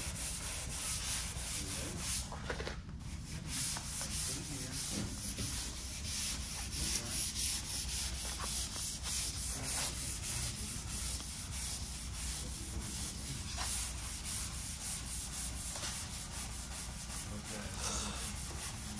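Sandpaper on a long hand sanding block rubbing over a car door panel in repeated back-and-forth strokes: hand block-sanding to level and straighten the door's bodywork.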